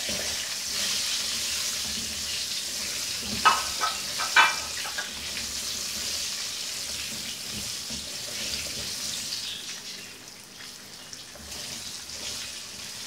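Whole green chillies sizzling in hot oil in a wok as they are stirred with a spatula; the sizzle is a steady hiss that eases a little near the end. Two short, louder sounds break in about three and a half and four and a half seconds in.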